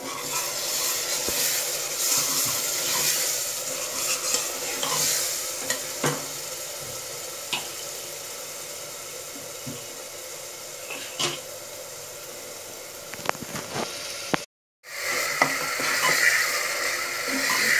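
Chopped tomatoes and spiced green garlic chutney sizzling in hot oil in a pressure cooker, stirred with a steel ladle that scrapes and clinks against the pot now and then. The sizzle drops out for a moment near the end, then comes back louder.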